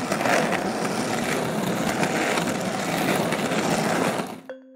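Skateboard wheels rolling with a steady, rough rumble that stops about four and a half seconds in.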